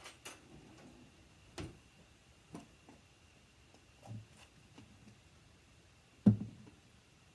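Scattered light clicks and knocks of a jar being handled on a kitchen counter, with one sharper knock about six seconds in as the jar of Knorr seasoning powder is picked up.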